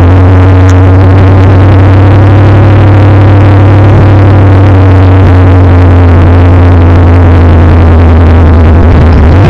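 Chevrolet 468 big-block V8 in a 1970 pickup running, heard from inside the cab: a loud, steady note held at one pitch, which dips and climbs again near the end.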